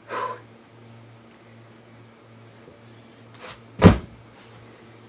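A carpetboard, a skateboard deck without trucks, swishing against carpet at the start, then a brief scuff and a loud thump just before four seconds in as the board and rider land on the carpet. A low steady hum runs underneath.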